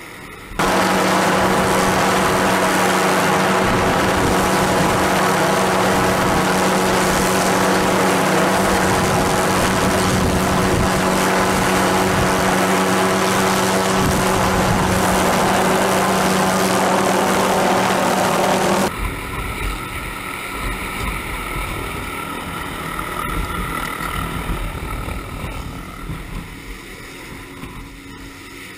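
Diamond drill rig's engine running steadily, loud and close, with a constant low hum. About 19 seconds in it drops abruptly to a quieter, rougher engine sound with wind buffeting the microphone.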